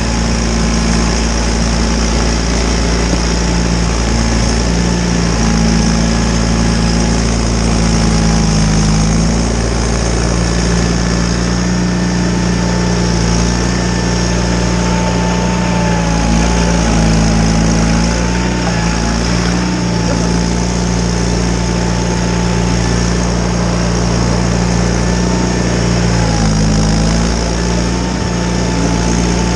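John Deere 318 garden tractor's air-cooled two-cylinder Onan engine running steadily under load, its note dipping and recovering slightly a few times, with a thin wavering whine above it.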